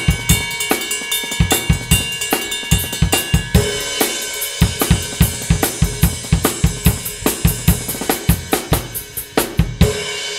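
Drum kit playing a steady rock beat of kick and snare under a thick, heavy Zildjian S Rock Ride 20-inch ride cymbal that keeps ringing between strokes. Near the end the playing stops on a last hit and the cymbal rings out.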